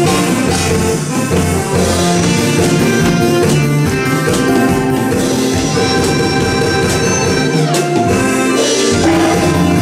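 Instrumental break in the accompaniment of a Korean song, with no voice singing.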